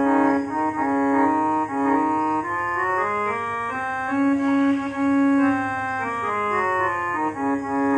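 Casio SA-77 mini keyboard playing a slow single-note melody on its built-in harmonium voice (tone 16), held reedy notes one after another.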